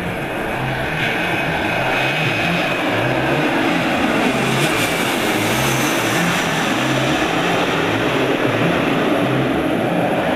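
A twin rear-engined jet flying low overhead on approach. The engine noise swells to a peak about halfway through, then eases off.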